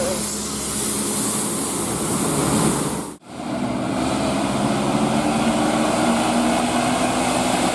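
Road vehicle engine running with steady road and traffic noise, with a faint low engine tone; the sound breaks off abruptly for an instant about three seconds in and then resumes.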